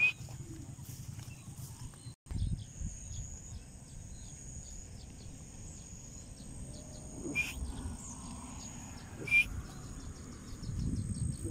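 A bird gives single short, sharp calls, four in all: one at the start, then three about two seconds apart near the end. Under them run a low rumble and a faint, steady high insect trill.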